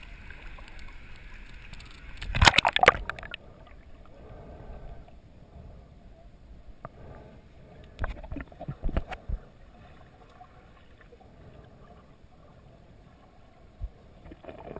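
Water splashing loudly about two and a half seconds in as a camera breaks through the surface. Then a muffled underwater wash, with a few dull knocks around eight to nine seconds in.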